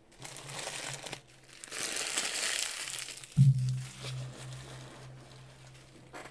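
Plastic wrapper crinkling and being crumpled, as the wrap comes off a trading-card hobby box. A thump about halfway through, followed by a low steady hum.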